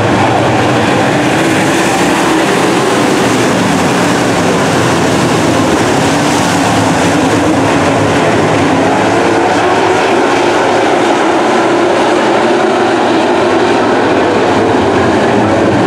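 A field of dirt super late model race cars racing in a pack, their V8 engines running flat out together as one loud, steady, overlapping engine noise.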